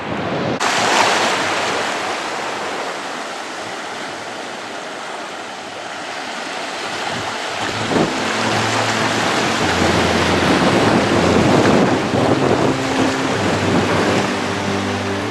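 Sea surf washing on a beach, mixed with wind buffeting the microphone. From about halfway through, the steady hum of a motor joins in.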